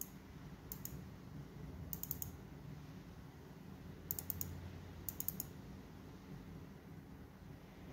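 Four short bursts of quick, light clicks, a few clicks in each, over a faint steady low hum.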